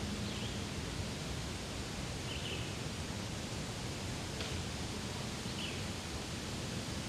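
Daytime forest ambience: a steady rustling hiss, with three brief, faint bird chirps and a soft click.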